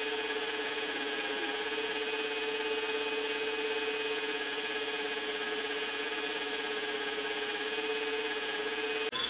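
Machine tool running steadily with a constant whine while drilling the tap hole for a 1/4-20 thread in a metal part; the sound breaks off briefly near the end.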